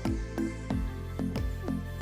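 Background music with a steady beat, about three low thumps a second over held tones.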